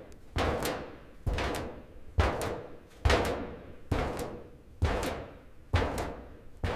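Slow, even footsteps on a metal floor: eight heavy steps, about one a second, each a sharp impact with a lighter second click and a brief metallic ring.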